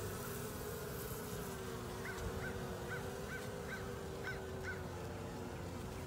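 Honeybees buzzing steadily at an opened hive-top feeder, one close bee's drone holding a single slightly wavering pitch. From about two seconds in, a run of eight short high chirps comes about two or three a second.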